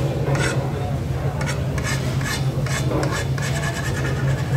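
Repeated short scrapes of utensils against dishes, irregular in timing, over a steady low hum.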